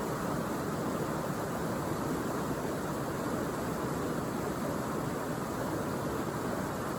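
Steady rush of flowing water, an even unbroken roar that holds the same level throughout.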